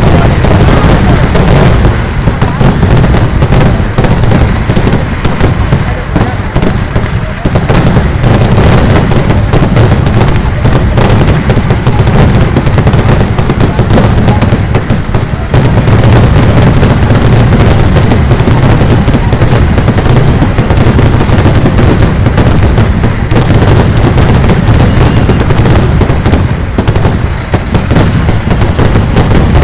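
Vedikettu fireworks: a dense, unbroken barrage of firecracker blasts, many per second and very loud, merging into one continuous rattle.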